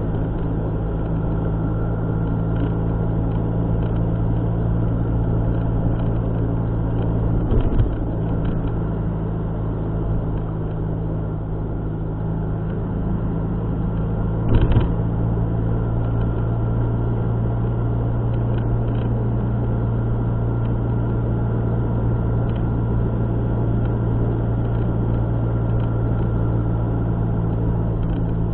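Car driving: a steady engine and road drone, with two brief knocks, about seven and a half and fourteen and a half seconds in.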